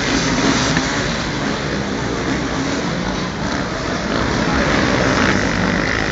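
Engines of several motocross bikes running on a dirt track, a steady, dense engine noise.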